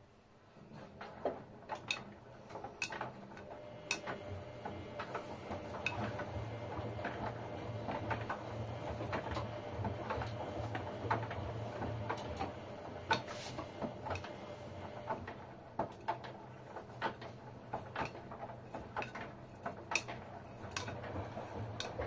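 LG Direct Drive 6 kg front-loading washing machine starting a wash tumble after a pause: a low motor hum as the drum turns, the laundry sloshing in sudsy water, and irregular sharp clicks and taps as the load knocks against the drum.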